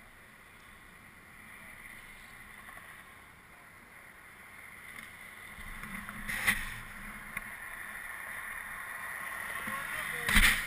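Arctic Cat Snopro snowmobile running along a trail, its engine a steady, muffled whine that grows louder about halfway through. There are sharp knocks about six and a half seconds in and again near the end.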